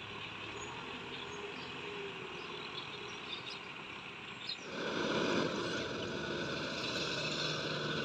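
Kubota M6040SU tractor's diesel engine running steadily as it tills a flooded paddy with a rotavator. It is faint at first, then much louder and fuller from about five seconds in.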